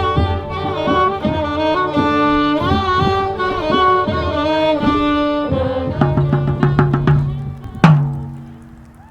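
Music: a bowed string melody with sliding notes over percussion. Near the end it gives way to a low held note and a few struck strokes, and the last and loudest stroke rings out and fades.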